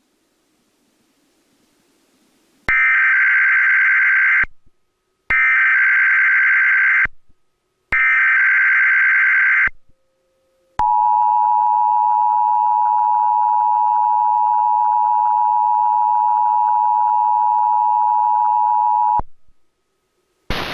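Emergency Alert System Required Monthly Test relayed over cable TV. Three short bursts of SAME header data tones come first, each a buzzing digital warble about two seconds long with short gaps between. About a second later the steady two-tone EAS attention signal sounds and holds for about eight seconds, then cuts off.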